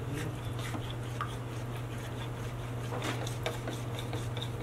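A spoon stirring in a small ceramic cup, scraping and lightly clinking against its sides as cornstarch is dissolved in water, over a steady low hum.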